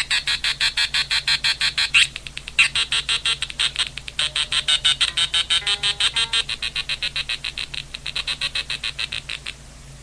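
Electric guitar played through a homemade 555-timer guitar effect, the Beavis Audio 555 Modifier, whose 555-based LFO chops the signal into rapid even pulses, about seven a second. The pulsing cuts off abruptly near the end.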